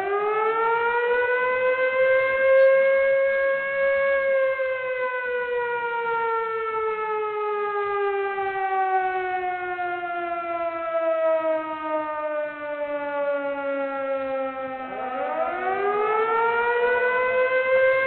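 Wailing siren with a single pitched tone: it rises over the first few seconds, holds briefly, slowly falls over about ten seconds, then rises again near the end.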